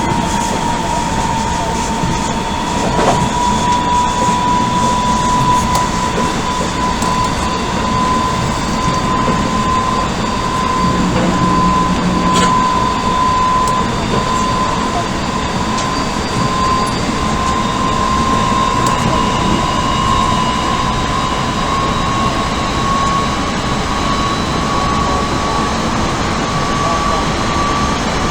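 Odakyu 1000 series electric train running at speed, heard from inside the car: the traction motor whine of its Mitsubishi GTO inverter drive rises slowly and steadily in pitch as the train gathers speed, over a steady rumble of wheels on rail with an occasional knock from the track.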